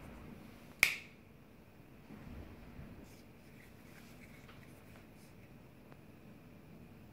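Benchmade Griptilian 551S AXIS-lock folding knife being closed: the blade swings shut with one sharp click a little under a second in, then a few faint ticks as the closed knife is handled.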